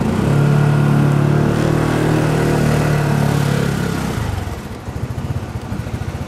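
Adiva 200 scooter engine pulling away under throttle: a strong, steady engine note held for about four seconds, then dropping back to a lower running level.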